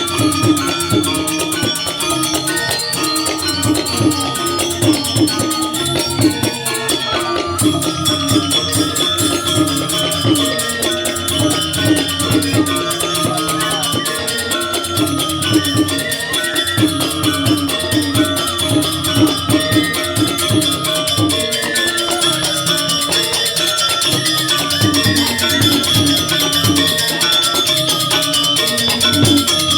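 Instrumental music with a fast, dense beat and a repeating stepped melody.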